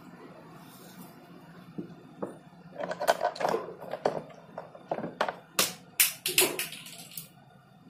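Plastic comb drawn through long hair close to the microphone: a quick, irregular run of scratchy strokes and clicks in the second half, over a steady low hum.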